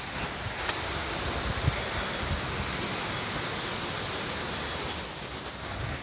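Strong wind blowing: a steady rushing noise with some low buffeting, easing off near the end.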